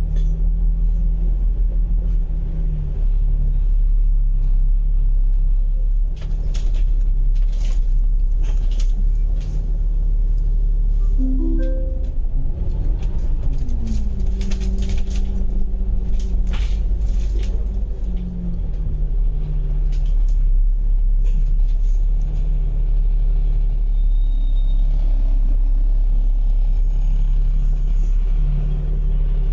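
Double-decker bus running in traffic, heard on board: a heavy engine and drivetrain rumble whose note shifts in steps several times, with a falling glide about halfway through. Clusters of rattling clicks from the bus body come in about a quarter of the way in and again around the middle.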